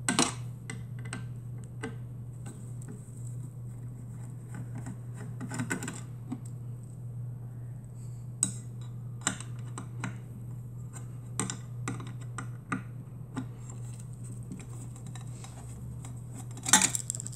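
Screwdriver clicking and scraping against small metal screws as they are unscrewed from a sheet-metal frame, irregular sharp taps with a few louder clatters, over a steady low hum.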